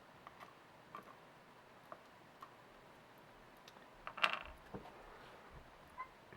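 Small metal parts of a Kwikset SmartKey lock being handled during disassembly: scattered light clicks, a louder cluster of clattering about four seconds in, and a brief ringing click near the end.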